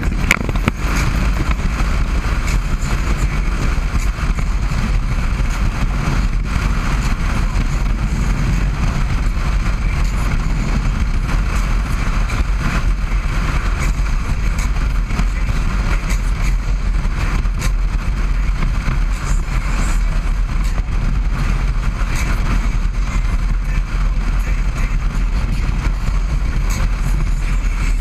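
Harley-Davidson Road Glide's V-twin engine running steadily at freeway cruising speed, mixed with a constant rush of wind and road noise.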